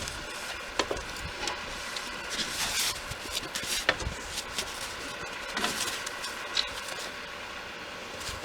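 Engine of a snow-clearing machine running steadily, with scattered knocks, rattles and short hissy bursts over it.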